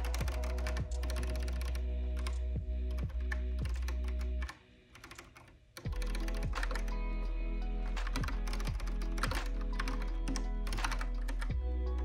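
Kinesis Advantage 360 Pro split contoured keyboard being typed on: quick runs of key clicks, over lo-fi music with a steady bass line. The music cuts out for about a second near the middle, leaving only faint key taps.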